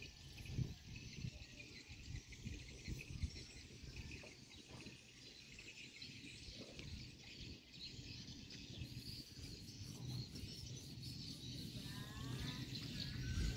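Faint outdoor ambience: a steady high chirring of insects over low, uneven rumbling noise.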